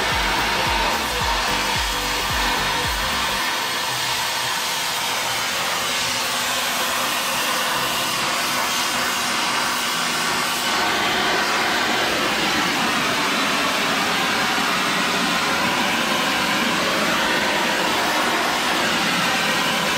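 Gas torch flame burning with a steady hiss.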